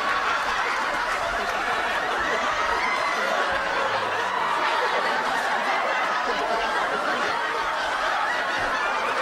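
Studio audience laughing, many voices at once in one long, unbroken wave of laughter.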